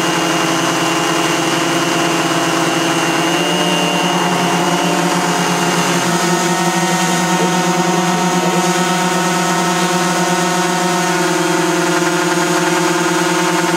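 Small piston engines of a four-engine radio-controlled Super Constellation model running steadily on the ground. Their pitch changes about three and a half seconds in and again about six seconds in, as the throttle is adjusted.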